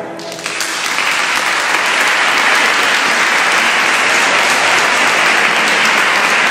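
Audience applauding, building up quickly as the choir's final chord dies away and then going on steadily.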